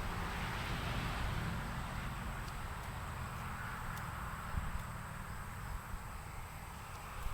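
Wind rumbling on the microphone, with a faint steady high-pitched whine and a few light ticks.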